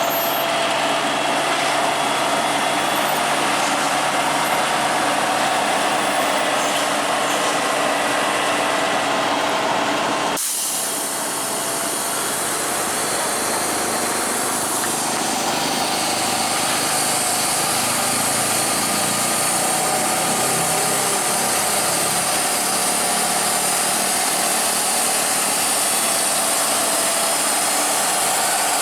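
Heavy truck engine running steadily with road noise, broken abruptly about ten seconds in, after which it carries on with a slightly different sound.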